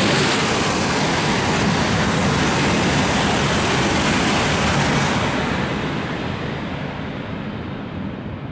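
E6-series Komachi Shinkansen coupled to an E5-series set running through a station at high speed without stopping: a loud, even rush of wheel and wind noise that holds for about five seconds, then fades as the train goes away.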